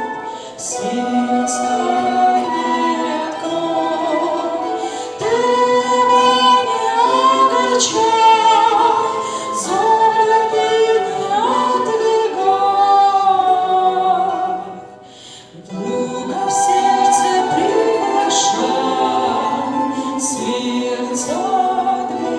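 Christian worship song: sung vocals, with a choir or female voices, over sustained accompaniment, dipping briefly about fifteen seconds in.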